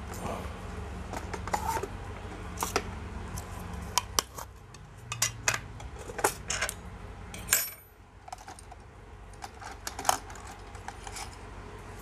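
Small tins and hand tools picked up and set down on a workbench: a string of sharp clicks and light metallic clinks, over a steady low hum.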